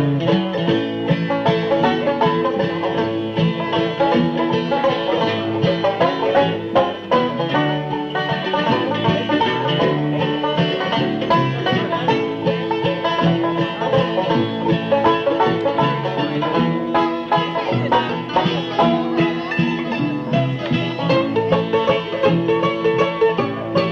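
Bluegrass band playing an instrumental break with no singing: banjo, guitar, bass and fiddle, the banjo prominent.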